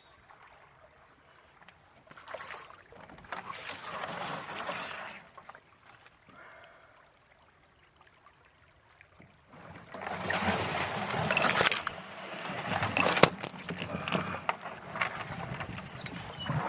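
Canoe paddling on a river: paddle strokes swishing and splashing in the water, with a few sharp knocks, growing louder and choppier in the second half after a short quiet lull.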